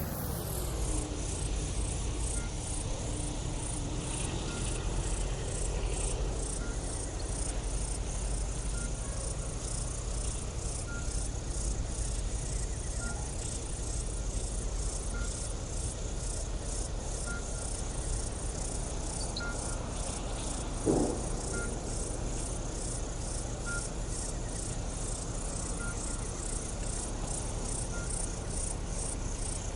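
Insects chirping in a steady pulsing rhythm of a few chirps a second, with a faint short note repeating about every two seconds. A single brief knock sounds about two-thirds of the way through.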